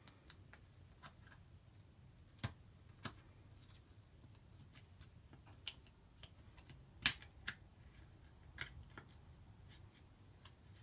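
Scattered small clicks and taps of a trading card being handled and slid into a plastic card sleeve and a rigid plastic top loader, with the loudest click about seven seconds in.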